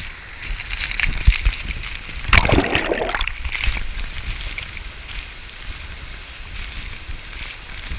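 River water splashing and sloshing, with one louder splash lasting about a second a couple of seconds in.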